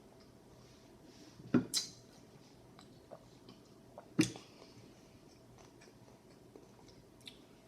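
Close-miked chewing of a fried spicy chicken sandwich, with three short sharp sounds: two close together about one and a half seconds in and one about four seconds in.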